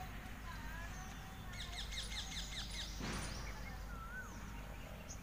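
Birds calling in the background, with a quick run of about nine short, falling chirps about two seconds in and a few single whistled notes; a brief rustle about three seconds in.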